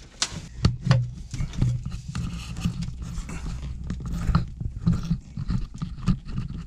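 Irregular clicks and knocks of a flathead screwdriver and hand tools on metal engine fittings, working a connection loose, over a low, muffled rumble of handling noise.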